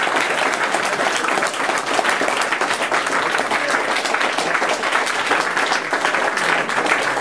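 A roomful of people applauding, many hands clapping at once without a break.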